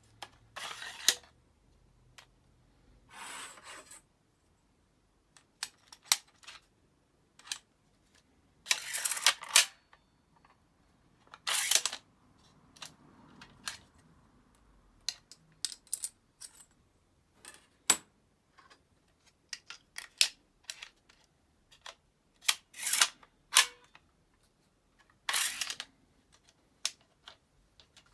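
Hands handling packaging and plastic tool parts: several short bursts of rustling spread through, and many scattered sharp clicks and snaps.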